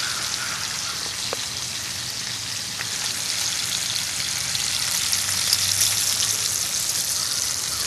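Bacon frying in a cast-iron skillet: a steady sizzle flecked with small crackles.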